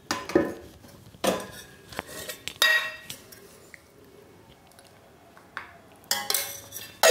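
A metal spoon clinking against a steel bowl while scooping out ghee: a few sharp clinks in the first three seconds, a quiet stretch, then more clinks near the end.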